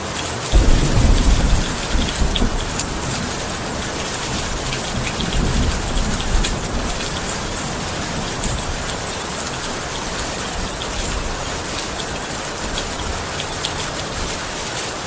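Steady heavy rain falling, with a low rumble of thunder starting about half a second in and lasting a second or two, and a second, weaker rumble around the middle.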